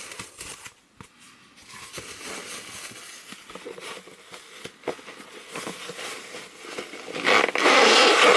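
Packaging being handled and unwrapped by hand: scattered crinkling, rustling and small clicks, then a loud burst of crinkling about seven seconds in that lasts just over a second.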